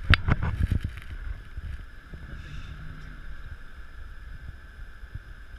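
Wind rumbling on the microphone over an open boat, with a few sharp knocks in the first second.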